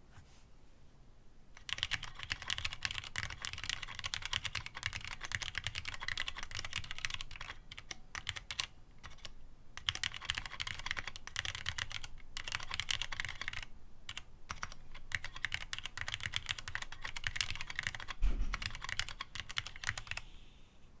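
Rapid typing on a gasket-mounted aluminium-plate keyboard with no foam, fitted with Cherry MX Black Clear-Top linear switches and MT3 keycaps: a dense stream of key clacks that starts after a short quiet moment, breaks off briefly a few times, and has one heavier thud near the end.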